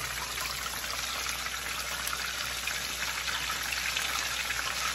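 Chicken pieces frying in hot oil in a cast-iron skillet: a steady crackling sizzle.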